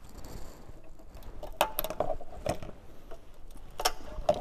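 Plastic push-in trim clips on the intercooler air guide of a Suzuki Jimny being pried out with a trim tool: several sharp clicks and snaps spread over a few seconds.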